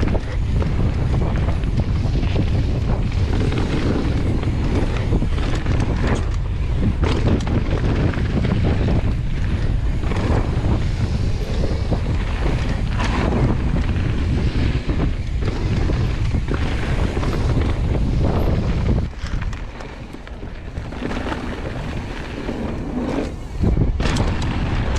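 Wind buffeting the microphone of a downhill mountain bike riding at speed, with knocks and rattles from the bike over rough dirt trail. The rush drops quieter about 19 seconds in and comes back loud shortly before the end.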